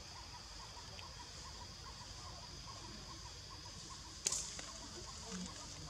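Forest background of a steady high insect drone with a faint chirp repeating about three times a second, broken by one sharp snap about four seconds in.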